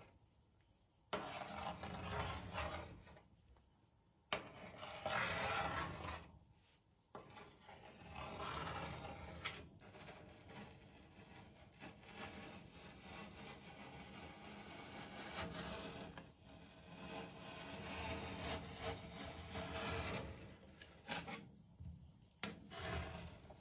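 Metal spatula scraping across a frozen ice-cream sheet on a steel cold plate, cutting it into strips and scraping a strip up into a roll. A few separate strokes start suddenly, then the scraping runs on almost without a break.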